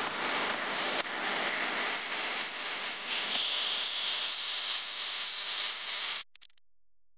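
Steady rushing hiss that cuts off abruptly about six seconds in.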